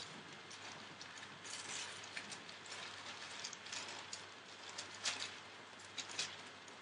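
Puppies moving about on a newspaper-covered floor: irregular paper rustling and light claw clicks, with a few sharper ticks near the end, over a faint steady hum.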